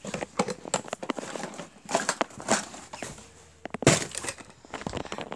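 Handling noise on the camera's microphone: irregular rustling, scraping and clicking as the camera is moved about and rubbed, with one louder knock about four seconds in.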